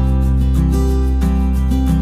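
Background music: a strummed acoustic guitar over held bass notes.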